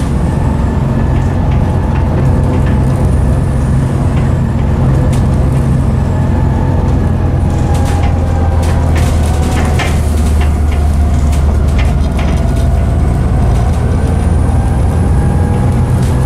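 Volvo B7TL bus's Volvo D7C diesel engine heard from inside the saloon while driving: a loud, steady low drone with a whine that dips in pitch midway and rises again, as the engine thrashes. Short rattles and clicks from the bus body come through the middle.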